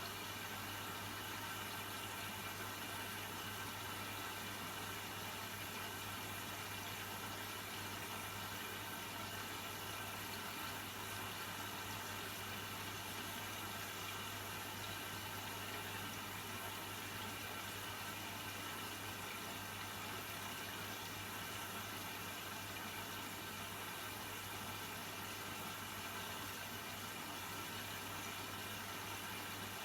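Washing machine partway through a warm synthetics cycle, water running steadily into or through it over a constant low hum.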